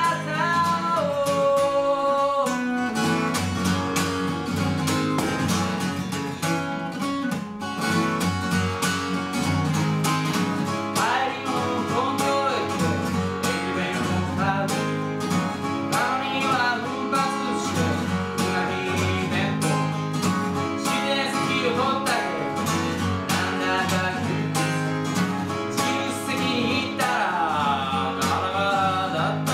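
A man singing to his own acoustic guitar, strumming steady chords under the melody.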